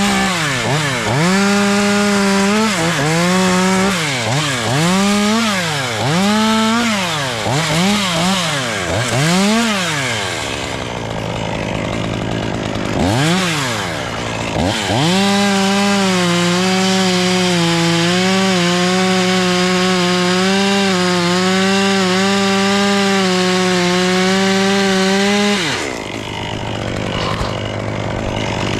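Two-stroke chainsaw revved in a run of quick throttle blips, then a single rev a few seconds later, then held at high revs for about ten seconds, as in a cut through wood, before dropping back and revving up once more near the end.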